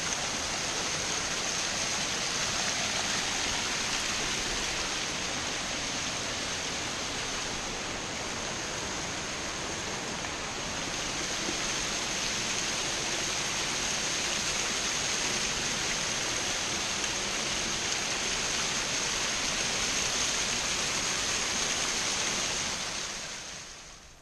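Big Bradley Falls' waterfall rushing steadily, heard close enough to be in its spray; the sound drops away about a second before the end.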